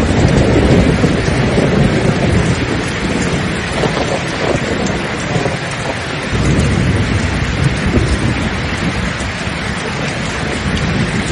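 Steady rain with thunder rolling low underneath, the rumble heaviest in the first few seconds and swelling again around the middle.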